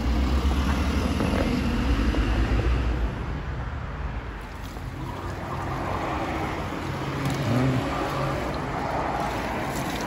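Road traffic: cars passing on a city street, a heavy low rumble that eases off about three seconds in, followed by a quieter steady noise.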